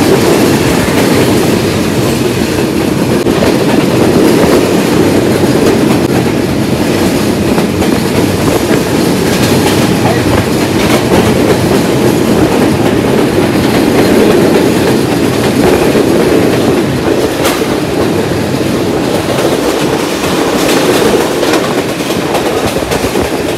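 Passenger train running at speed, heard through an open window: a loud, steady rumble of wheels on rails with the clickety-clack of rail joints and a few sharper clacks.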